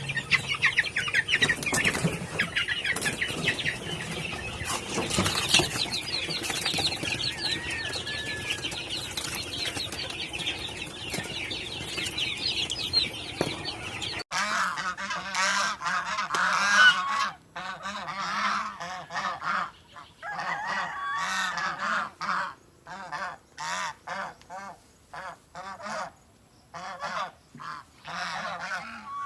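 A flock of poultry calling. For the first half, many birds chirp and cluck over each other. About halfway it changes abruptly to loud, honk-like calls in bursts, with short gaps between them.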